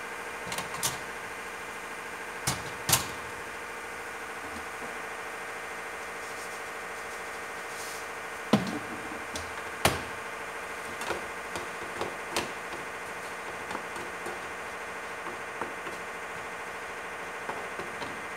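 A steady hum runs under scattered sharp clicks and knocks, the loudest about eight and a half seconds in. Near the end come lighter taps of a wooden spatula stirring in a frying pan.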